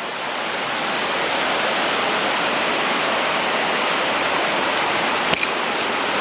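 Mountain stream rushing over rocks, a steady even wash of water that swells slightly in the first second. A single sharp click sounds about five seconds in.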